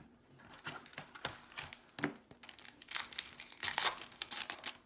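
Foil trading-card pack wrapper crinkling and tearing as it is handled and opened, an irregular crackling that grows louder in the second half.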